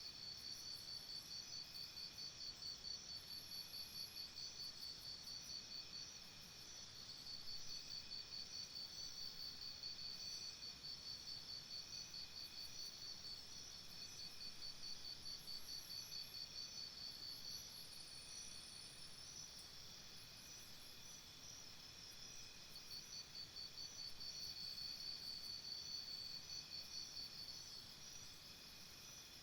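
Insects trilling in a high, fast-pulsing chorus over a fainter steady insect hum, swelling and easing every few seconds.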